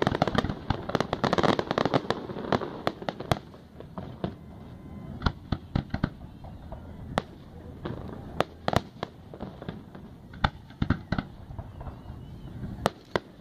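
Aerial fireworks shells bursting: a dense run of bangs in the first two to three seconds, then single bangs every second or so for the rest.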